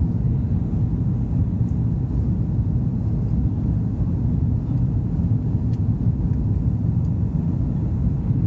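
Steady low rumble of an Airbus A330's jet engines and rushing air, heard inside the passenger cabin during the climb after takeoff.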